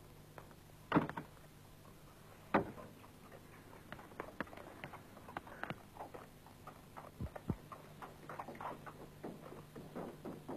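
Irregular clicks and knocks over a faint steady hum: two sharper knocks about a second and two and a half seconds in, then a quicker, uneven run of lighter clicks.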